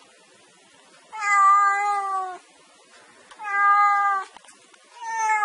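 Black cat meowing three times, each meow about a second long and falling slightly in pitch, the first the longest.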